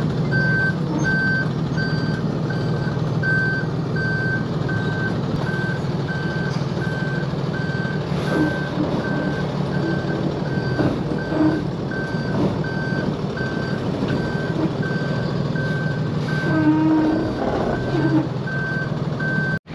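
Truck-mounted road sweeper reversing up the ramps onto a low-loader trailer: its reversing alarm beeps at one high pitch, evenly, about one and a half beeps a second, over the steady hum of its engine.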